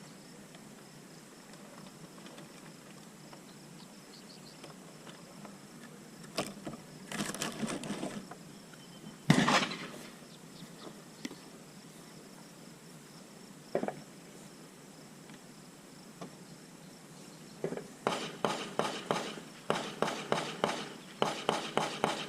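Ammunition and boxes rattling and clicking as ammo cans are rummaged through, in short clattering bursts, with one sharp bang about nine seconds in and a fast run of rattling clicks near the end. A faint insect buzz sits behind it.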